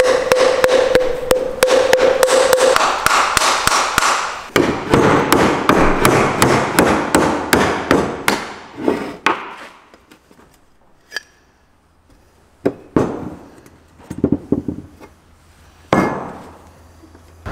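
Mallet beating on a heat exchanger shell to drive the tube bundle out: a long run of rapid, repeated blows, then a few separate knocks about halfway through and later.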